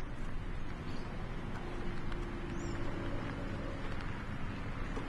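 Steady outdoor background noise with a low rumble, and a faint held tone through the middle.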